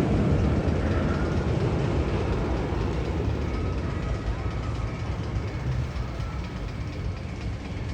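Steady rumble of the Magnum XL 200 roller coaster train running on its track, easing off slightly toward the end.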